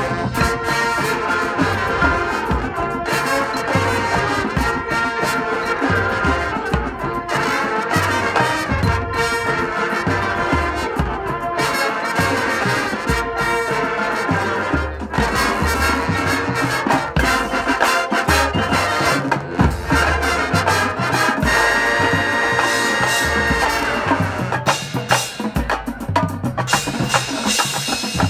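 High school marching band playing: brass section with drums and front-ensemble keyboard percussion, low drum beats pulsing under the melody.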